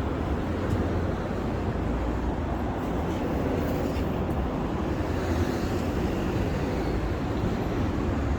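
Steady city street noise: a constant low rumble of road traffic.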